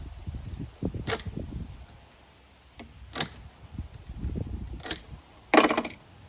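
Hand work on a sheet of acrylic while cutting a piece out of it: a few sharp clicks and taps, low handling knocks, and a louder short scrape near the end.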